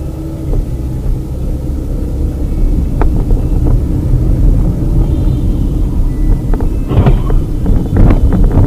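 Car driving, heard from inside the cabin through a dashcam: a steady low engine and road rumble, with one sharp knock about three seconds in and a run of irregular knocks and rattles near the end.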